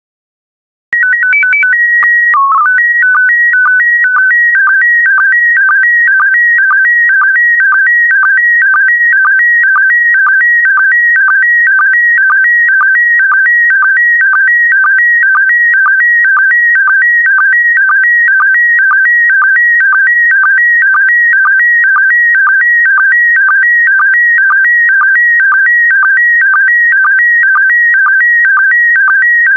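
Slow-scan television (SSTV) signal in PD120 mode. About a second in it starts with a header of steady tones and quick pitch steps, then goes into the image-scan tones: a loud warbling pattern of alternating pitches that repeats evenly about twice a second as the picture's lines are sent.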